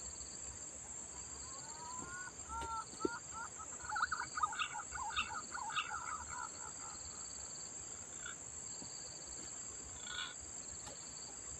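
Green pigeon (punai) giving a whistled call: a few rising whistles about two seconds in, then a quicker run of notes lasting about three seconds, over a steady high insect drone.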